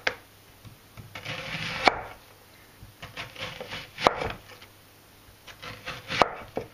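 A chef's knife slicing a red onion into thin rings on a wooden cutting board: soft scraping as the blade draws through the onion, and a sharp knock each time it reaches the board, four times about two seconds apart.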